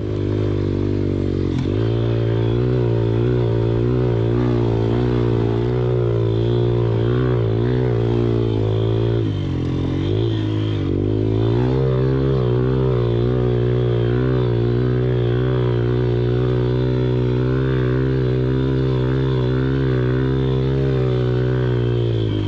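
Small single-cylinder four-stroke 110cc pit bike engine running under steady throttle, with its pitch dipping briefly a couple of times as the throttle eases off and comes back on.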